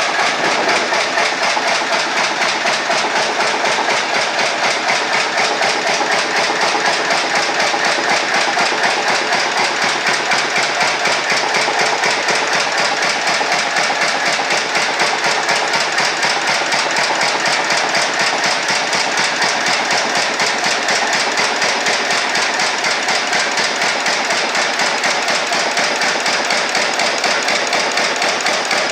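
Blackstone stationary engine running steadily under its own power, with a fast, even beat.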